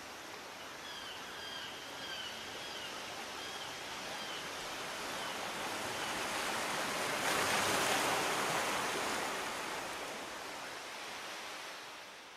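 Rushing water noise that swells gradually to a peak about eight seconds in, then fades away, with a few faint short chirps in the first few seconds.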